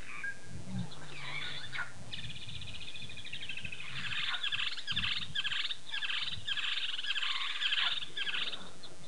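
Birds chattering and chirping, a fast rhythmic chatter that grows louder about four seconds in, over a faint low rumble about a second in.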